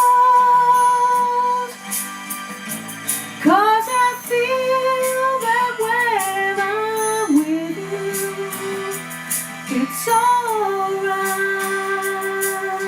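A woman singing long, held notes over a soft instrumental backing. Each phrase slides up into its first note, with new phrases starting about three and a half seconds in and again about three quarters of the way through.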